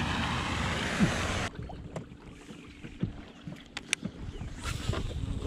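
A steady rush of wind on the microphone with one thump about a second in, then a sudden cut to a quieter stretch of scattered clicks and knocks from a rod and reel being handled in a small boat.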